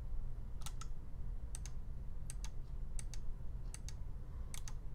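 Computer mouse clicking at a steady pace, about one click every three-quarters of a second, with two clicks close together near the end, over a low steady hum.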